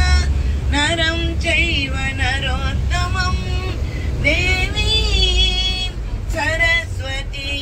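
A woman singing a devotional bhajan, the melody wavering and held on long notes, over the steady low rumble of a moving bus.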